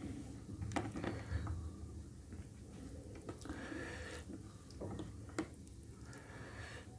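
Fingers mixing curry-soaked rice and chicken by hand on a plate: soft wet squishing with a few sharp clicks.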